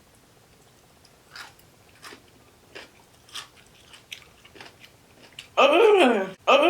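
Soft crunchy chewing of a mouthful of kimchi, a string of faint separate crunches. Near the end come loud, falling vocal groans of disgust.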